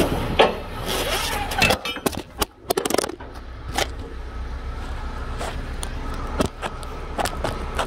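Handling noise from a phone being moved about: rubbing, a dense flurry of clicks and knocks about two seconds in, then scattered single knocks, over a low steady rumble.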